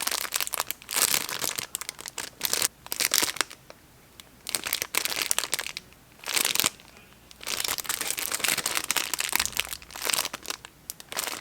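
Plastic wrapping crinkling as a squishy toy is handled, in irregular bursts with a few short pauses.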